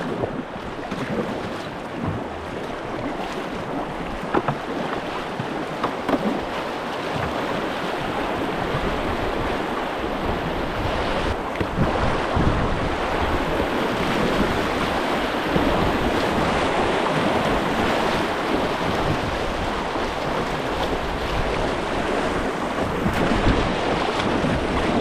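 River rapids rushing and splashing around a whitewater kayak, with the paddle blades dipping and pulling through the water. Gusty wind buffets the microphone.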